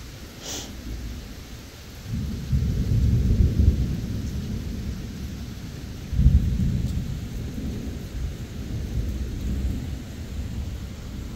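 Thunder during a rainstorm: a low rumble swells about two seconds in, and a second peal with a sharper start comes about six seconds in and fades slowly, over steady rain.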